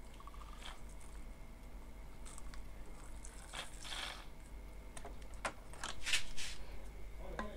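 Faint scattered clicks and rustles of small plastic parts being handled: a printer's ink damper with a syringe on it, then the damper refitted, with the strongest clicks about four and six seconds in. A low steady hum runs underneath.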